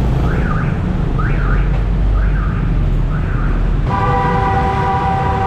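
Street traffic with engines rumbling under an electronic alarm that wails up and down about once a second. About four seconds in, the wail gives way to a long, steady horn-like tone.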